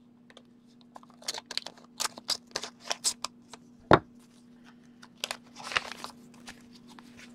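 A paper envelope being slit open and handled: a run of quick crinkling, tearing paper rustles, one sharp knock about four seconds in, then more paper rustling. A faint steady hum runs underneath.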